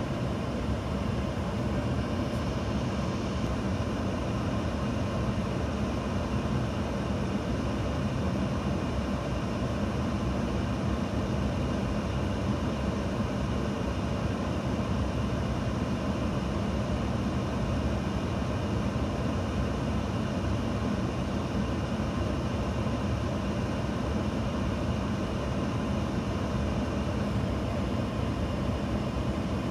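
Steady whoosh of a Skoda Fabia's cabin heater blower running, with the engine idling underneath. The owner blames a poor thermostat for the heating being weak.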